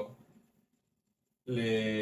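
Speech that trails off, then a break of almost a second of dead silence, then speech again.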